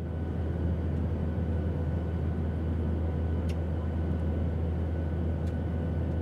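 Steady low machine hum of workshop ambience, with two faint ticks about two seconds apart.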